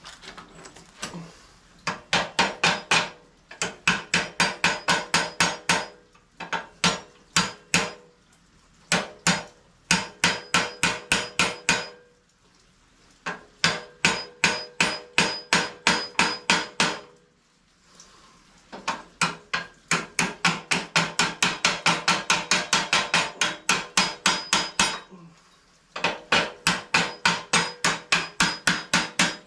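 Fast hammer blows on steel, about six a second, in runs of a few seconds with short pauses, each blow ringing. The hammering is on the chopper's front end to drive the fork and steering stem down out of the frame's steering head.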